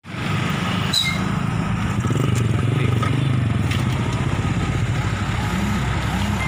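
A vehicle engine running steadily, with voices of people talking in the background.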